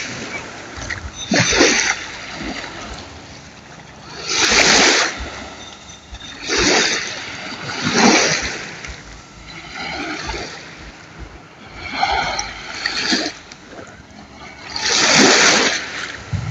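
Sea waves breaking and splashing in loud bursts every two to three seconds, with water sloshing in between.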